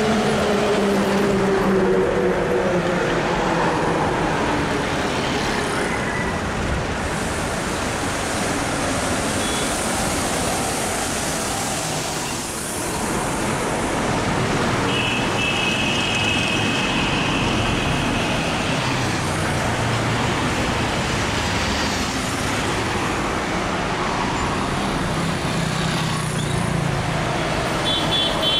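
Road traffic passing close by: a bus engine goes past in the first few seconds, its note dropping, then steady tyre and engine noise from cars and motorbikes. A vehicle horn sounds around the middle and again near the end.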